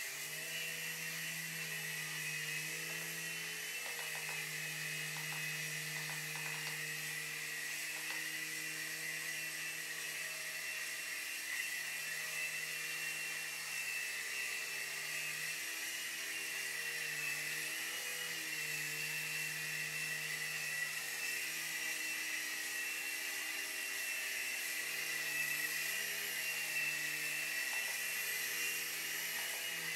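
Night Hunter micro RC helicopter's small electric motors and two rotors running in flight: a steady high-pitched whine over a lower rotor hum that wavers in pitch now and then.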